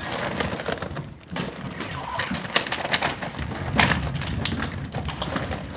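Crinkling of a foil toy-pack wrapper and squishing as hands work it out of a giant squishy ball filled with water beads: an irregular crackly rustle with many sharp ticks.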